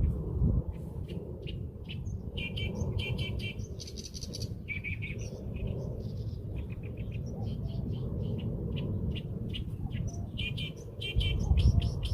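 Small birds chirping, a busy run of short, quick repeated chirps and trills. A low rumbling noise sits underneath, louder near the end.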